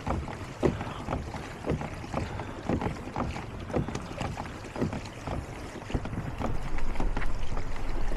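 Kayak moving through the water, with regular splashing strokes about twice a second. Wind rumbles on the microphone over the last couple of seconds.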